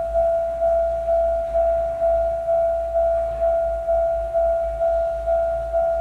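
Japanese level-crossing warning bell ringing a repeated single-pitched ding, about two strikes a second, each fading before the next: the alarm that a train is approaching and the crossing is closed.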